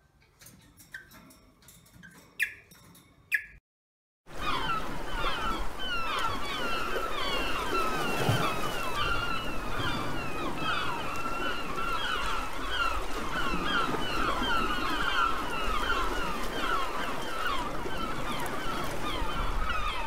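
An African grey parrot makes a few soft clicks and short whistles, then after a brief break a flock of gulls calls continuously, many short overlapping calls over a low steady rumble.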